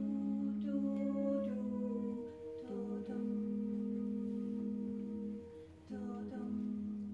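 Women's voices humming long held notes together in harmony, with short breaks about two and a half and six seconds in.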